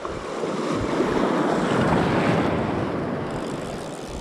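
A small sea wave washing in over the shallow beach, swelling for about two seconds and then fading away, with some wind on the microphone.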